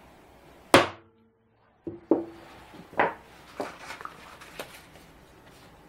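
Hammer tapping a prick punch into a steel bar to mark hole positions: one sharp ringing tap less than a second in, two more about two seconds in. Then lighter clicks and clatter as the hammer and tools are set down on the bench.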